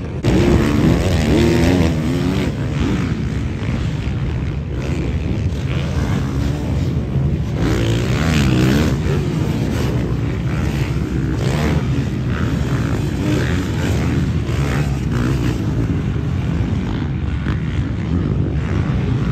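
Several motocross bikes running on a dirt track, their engines revving up and down as the riders accelerate and back off.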